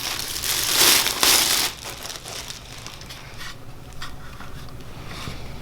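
Plastic packaging crinkling loudly as the cable stapler is unwrapped, for the first second and a half or so, then quieter rustling and small handling clicks.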